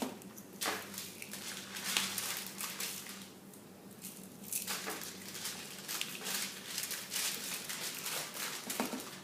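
Hands working cookie dough on a wax-paper-lined baking sheet: scattered soft rustles, crinkles and light taps, over a faint steady low hum.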